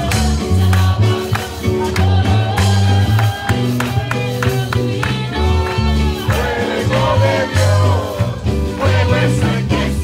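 Live church praise band playing a Pentecostal chorus over a PA, with electric bass and drums prominent under a woman singing into a microphone.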